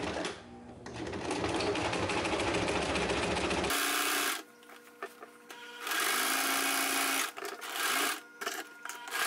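Kenmore household sewing machine stitching through layered apron fabric. It runs steadily for a few seconds, then in several short bursts with pauses between.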